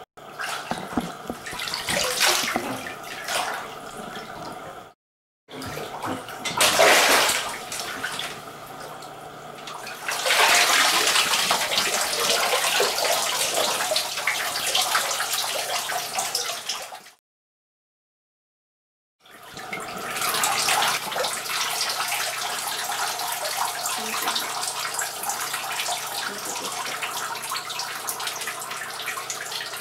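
Water running in a tiled bathroom, a loud even rush that breaks off twice in short silences.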